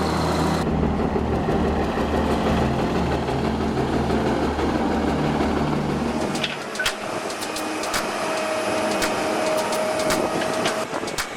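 Big twin-engine coal bulldozer with Cummins NTC 855 diesels, running steadily with a deep, even drone. About six and a half seconds in, the sound cuts abruptly to lighter machine noise with a steady whine and scattered sharp knocks.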